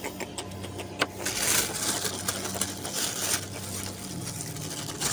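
Plastic bag rustling and crinkling, with scattered clicks, as a freshly caught fish is handled and put into it. Under it runs a steady low motor hum.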